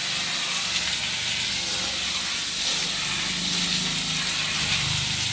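Steady hissing noise with a faint low hum underneath, unchanging throughout.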